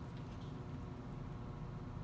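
Quiet steady low hum of room tone, with a few faint light clicks of a fork against a bowl about half a second in.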